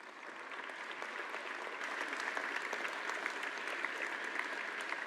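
Audience applause, many people clapping. It swells over the first couple of seconds, then carries on steadily.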